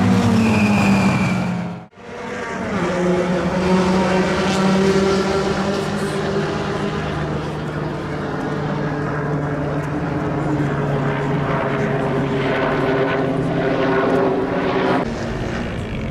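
A race car passing on the circuit, its engine note falling in pitch, cut off abruptly about two seconds in. Then a steady engine drone holds a constant pitch and changes near the end.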